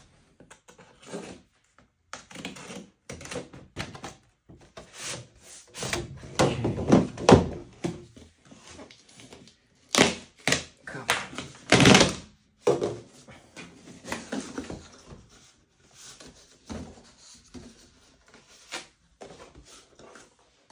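Cardboard boxes being handled and opened by hand on a wooden floor: tape slit and torn, flaps pulled open, and the boxes shifted and set down, in a run of irregular thunks and scrapes, loudest about six to eight and ten to twelve seconds in.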